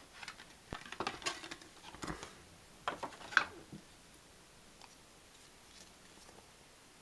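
Handling noise from unboxing: a cardboard box and paper insert rustling and a watch strap being pulled out and turned in the hands, a run of small clicks and scrapes over the first few seconds, loudest about three and a half seconds in, then only faint ticks.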